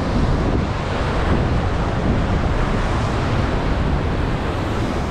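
Ocean surf breaking and washing over a rock ledge, with wind buffeting the microphone as a steady low rumble.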